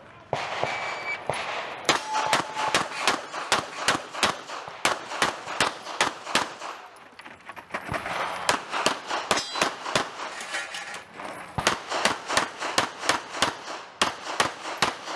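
Rapid pistol fire from a 9mm CZ Shadow 2 in a practical-shooting course of fire: quick strings of shots, several a second, broken by short pauses as the shooter moves and reloads. A short electronic start beep from a shot timer sounds about a second in, just before the first shot.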